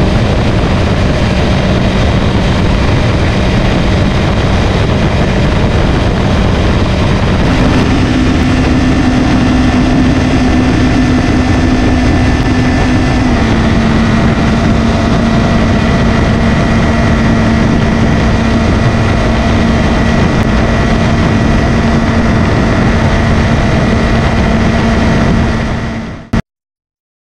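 Kawasaki Ninja 400's 400cc parallel-twin engine running steadily in sixth gear at highway cruising speed. Its note steps up about a third of the way in as the speed climbs from about 100 toward 120 km/h, then holds steady. The sound fades and cuts off near the end.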